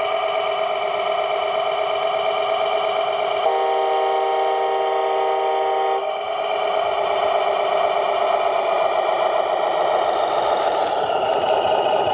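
Electronic sound module of an RC Mercedes Arocs truck playing a steady diesel engine sound through its speaker, with a horn blast held for about two and a half seconds in the middle.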